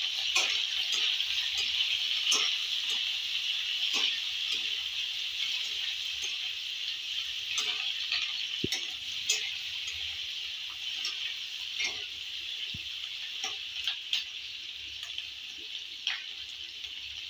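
Chopped onion and green capsicum sizzling in hot oil in a kadai, a steady sizzle that eases slightly as it goes on. The spatula clicks and scrapes against the pan every second or two as the vegetables are stirred.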